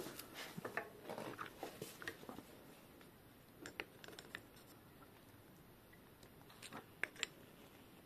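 Small clicks, taps and rustles of pliers and hands working in a Shimano BR-MT200 hydraulic disc brake caliper. A busy patch of handling noise comes first, then a few light ticks, then two sharper clicks close together about seven seconds in.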